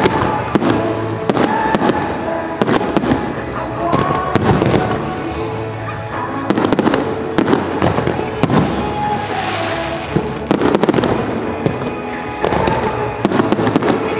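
Fireworks shells bursting repeatedly in quick succession over loud pop music with singing.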